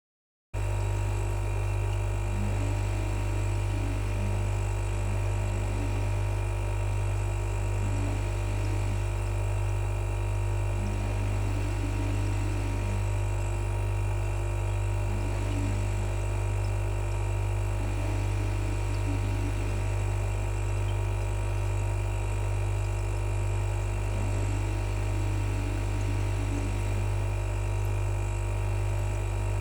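Fan running steadily, with a deep, even hum and a set of constant higher whirring tones. It starts about half a second in.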